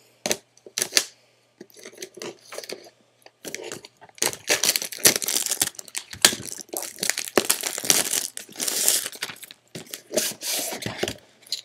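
Plastic shrink-wrap being torn and crumpled off a cardboard box. A few sharp snaps come first, then from about three seconds in a long stretch of dense crinkling and crackling.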